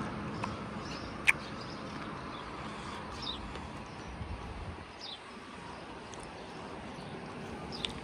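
Outdoor ambience: a steady hiss of background noise with a few short bird chirps, and one sharp click about a second in.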